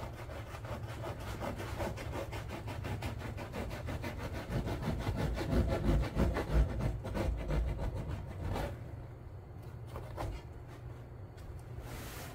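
A bare hacksaw blade, held in the hand, sawing through seat-cushion foam in quick back-and-forth strokes to cut away the old, damaged foam. The strokes stop about eight seconds in, and a couple of single scrapes follow.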